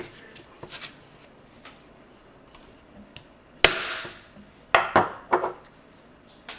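Small phone parts being handled and set down on a work surface: a few faint clicks, then one sharp clack with a short rustle after it, then three lighter knocks.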